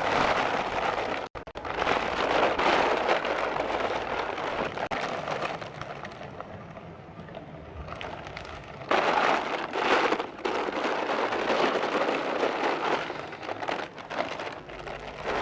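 A dense, steady rush of noise like heavy rain, with a brief dropout just after a second in, softer in the middle and louder again from about nine seconds in.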